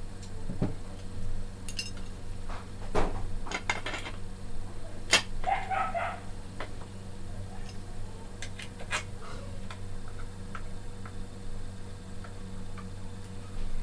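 Hand-assembly of an airgun: scattered metal clicks and knocks as the barrelled action is handled, set into its wooden stock and worked with a screwdriver. A dog barks briefly in the background about five and a half seconds in, over a steady low hum.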